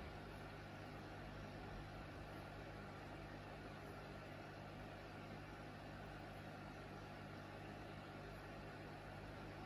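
Aquarium aeration running steadily: a low hum with the even hiss of a curtain of air bubbles rising through the water.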